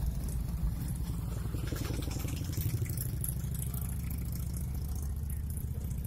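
Touring motorcycle engine running at low speed as it rolls past close by, followed by a car passing at low speed, both a steady low rumble.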